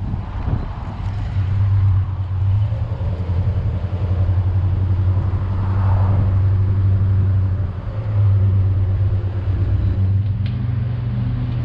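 Car engine running on the road while driving: a steady low drone with road noise, easing off briefly about eight seconds in.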